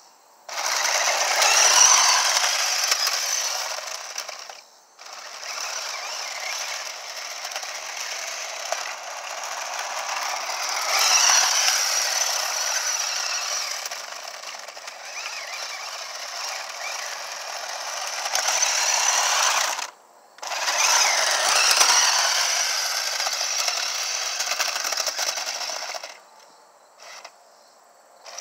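A small motor and gears whirring and rattling, swelling and easing off several times, with a few sudden brief cut-outs.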